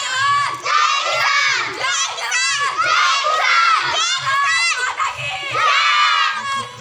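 A group of children shouting together in loud, high-pitched bursts, about one a second.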